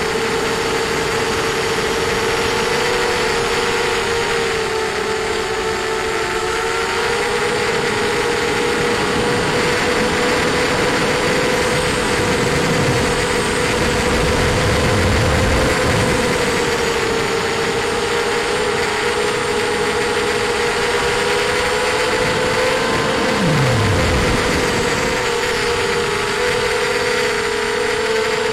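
ZMR250 FPV quadcopter's brushless motors and 5x4 propellers whining steadily in flight, the pitch wavering slightly with throttle, heard through the onboard camera with low wind rumble.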